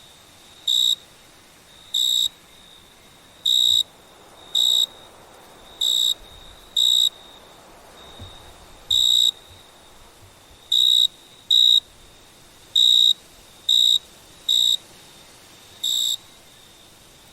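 A cricket chirping: short, loud, high-pitched chirps at an uneven pace, roughly one a second, over a faint steady high tone at the same pitch.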